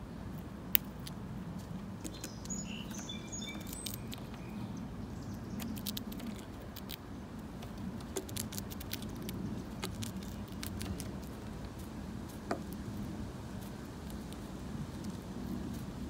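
Light, irregular taps and clicks of a red-winged blackbird pecking and stepping on a wooden feeding board, with one sharper tap less than a second in and another about twelve seconds in. A few short, high bird chirps come two to four seconds in.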